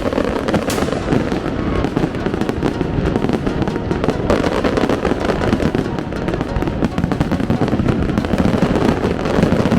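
Fireworks display: a dense, continuous barrage of bursts and crackles with no pause.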